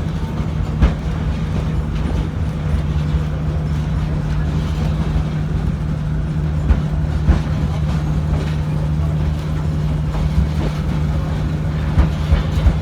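A train running along the track: a steady low drone, with scattered sharp clicks and knocks of the wheels on the rails.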